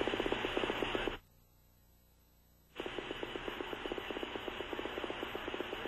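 Two-way radio channel open between transmissions: hiss cut off in the treble with a fast, even pulsing. It drops out for about a second and a half a little over a second in, then comes back.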